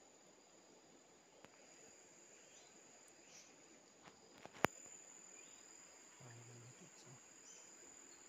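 Faint steady high-pitched drone of insects, with a single sharp click about four and a half seconds in.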